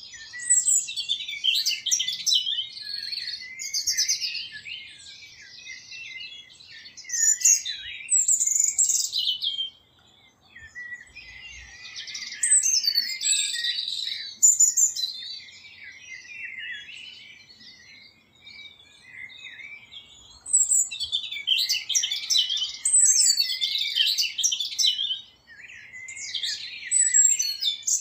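Small songbirds chirping and twittering, many high calls overlapping in bouts of a few seconds, with brief lulls about ten and eighteen seconds in.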